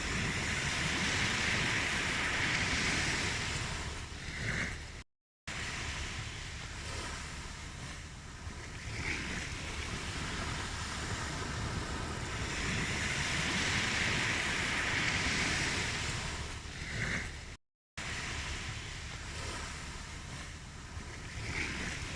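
Ocean waves washing ashore, the surf swelling and easing in slow surges. Twice the sound cuts out to silence for a split second, and the same stretch of surf repeats about every twelve seconds, as a looped recording does.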